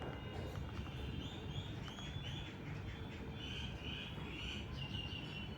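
Birds chirping in the background: a run of short, repeated chirps over a steady low rumble of background noise.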